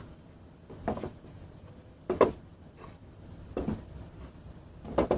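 Four short knocks on wood, about one every second and a half.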